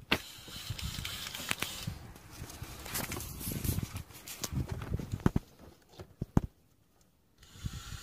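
Handling noise: scattered clicks, light knocks and rustling as a plastic oil bottle and its clear filler tube are moved about, with a brief quiet gap near the end.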